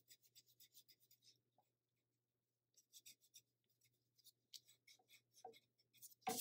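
Faint, quick scratchy strokes of a pencil rubbing over watercolor paper while sketch lines are cleaned up. There is a burst of strokes at the start, a short pause, then more strokes from about three seconds in.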